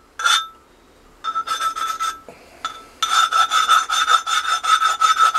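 Deburring strokes scraping along the cut edge of a metal plate, the plate ringing with each stroke. A short run of strokes comes first, then two light knocks, then a faster run of about five strokes a second.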